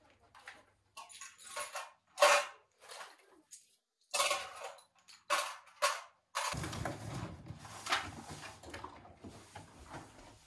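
Dishes and cutlery clattering in a series of short clinks and knocks, the loudest about two seconds in; from about six seconds in a steady noisy background runs under them.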